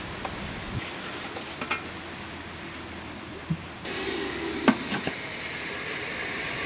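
A few light knocks and clicks over a steady background hiss; about four seconds in, the hiss turns abruptly louder and brighter.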